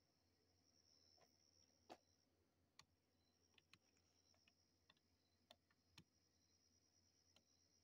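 Near silence, with faint scattered clicks at irregular intervals over a faint steady high-pitched whine that drops out briefly a little after two seconds in.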